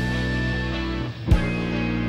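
Background rock music: held guitar chords, broken by a single drum hit a little past halfway.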